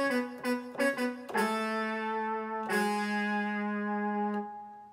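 Roland XP-10 synthesizer playing a brass-like patch: a quick run of short notes, then two long held chords, the second fading away near the end.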